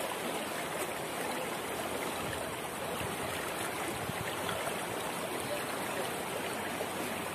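Steady rushing of a river flowing over a shallow, rocky stretch with small rapids.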